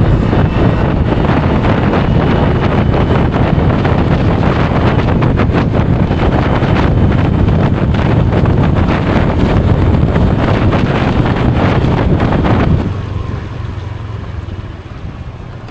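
Heavy wind buffeting the microphone of a chest-mounted camera on a motorbike ridden fast, mixed with the bike's running noise. The rush drops sharply about thirteen seconds in.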